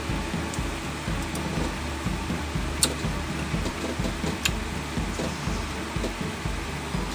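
Steady low background hum, with two short sharp clicks of a spoon against the ice cream carton, about three and four and a half seconds in.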